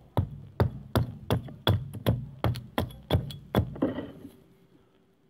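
Hand axe, a forged replica of a Roman axe, chopping into an upright stick of wood on a chopping block: about ten quick, sharp strikes, roughly three a second, stopping about three and a half seconds in.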